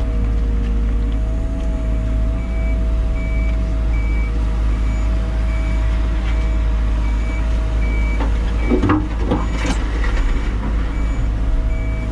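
Liebherr 914 Compact wheeled excavator running, heard from inside its cab: a steady engine and hydraulic hum with a constant whine, while a reversing alarm beeps at an even pace from about two seconds in. A short run of knocks and rattles comes about nine seconds in as the bucket works the dirt.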